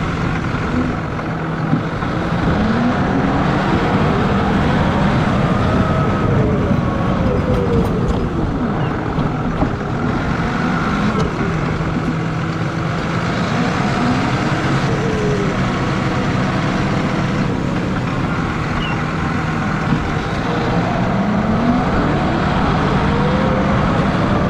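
John Deere 6155R tractor's six-cylinder diesel running steadily while pushing snow with a front plow blade. Over it, a whine rises and falls in pitch about four times.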